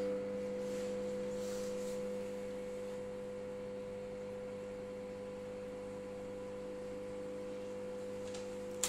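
Microwave oven running with a steady electrical hum, with a few faint pops from a bag of microwave popcorn cooking inside.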